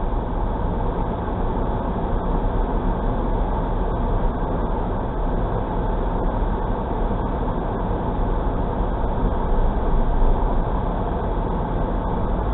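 A car's engine and tyre noise heard from inside the cabin as the car drives slowly, a steady low rumble.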